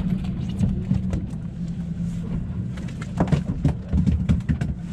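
Steady low drone of a boat's outboard motor running. From about three seconds in, a run of close rustles and knocks from a camera brushing against a fabric cover.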